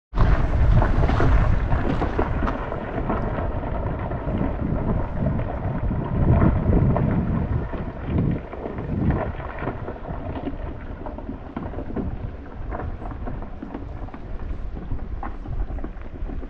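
Wind buffeting the microphone: a loud, uneven rumble that swells in gusts, strongest right at the start and again about six seconds in.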